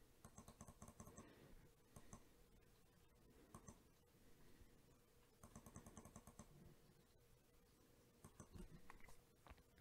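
Faint computer mouse clicks, with two quick runs of scroll-wheel ticks at about ten a second: one at the start and one about halfway through, with single clicks between.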